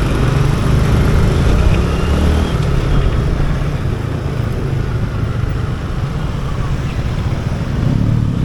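Motorcycle riding through city traffic: a steady low engine and road drone, a little louder in the first two seconds.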